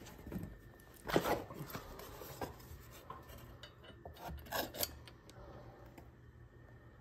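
Short, intermittent scraping and rubbing as the grinding jig is handled and adjusted by hand, with two louder scrapes about a second in and around four and a half seconds in, over a faint low hum.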